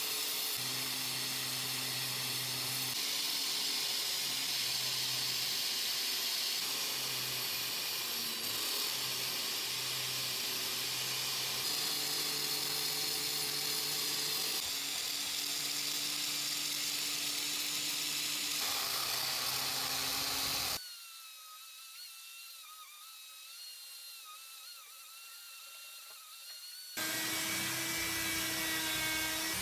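Angle grinder with an abrasive disc grinding rust off a steel hatchet head: a steady, dense grinding noise. About two-thirds through it drops to a quieter, wavering high whine. Near the end a die grinder spinning a small abrasive bit inside the hatchet's eye starts up, loud again.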